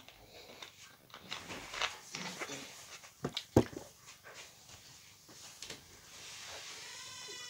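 Plastic bottles being handled, with crackling clicks, and a sharp knock about three and a half seconds in as a water bottle is set down close by. Near the end a drawn-out whine begins, rising and falling in pitch.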